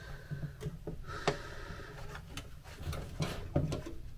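Light clicks and knocks of MGB heater box parts being handled and fitted together, with a sharp click about a second in and a few more near the end.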